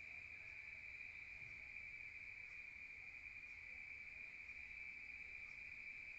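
Crickets chirping in a faint, steady, unbroken high trill.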